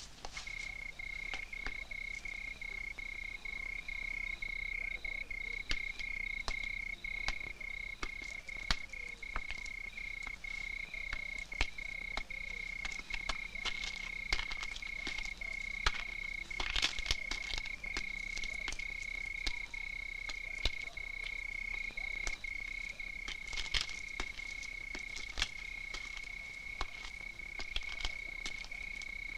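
Crickets trilling in one steady high note, pulsing at first and then nearly unbroken. Scattered sharp clicks sound throughout.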